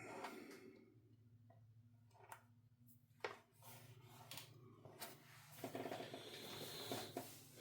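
Near silence: a low steady hum with a few faint clicks and light handling noises.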